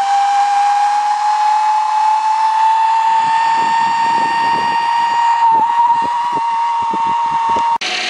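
Zipline trolley pulleys running along the steel cable, making a loud, steady whine that rises slowly in pitch. From about three seconds in, wind buffets the microphone. The whine cuts off abruptly just before the end.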